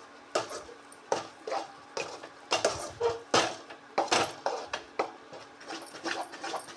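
Spoon scraping and clinking against a cooking pan in irregular strokes, about two or three a second, while stirring thickening jackfruit jam.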